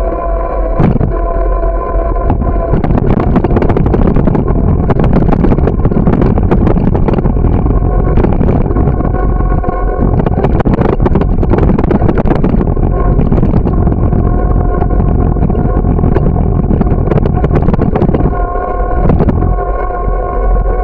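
Wind rushing over the microphone and road rattle on a camera riding along on a bicycle, loud and steady with many small knocks. A steady whining hum is heard at the start and again near the end.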